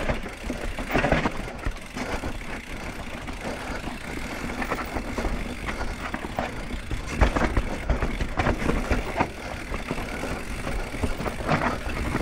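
Mountain bike descending a rocky, rooty trail, heard from a handlebar-mounted camera: tyres rolling and crunching over rock and dirt under a steady low rumble, with the chain and frame rattling and clattering knocks on the bigger hits, the loudest about a second in and around seven to eight seconds in.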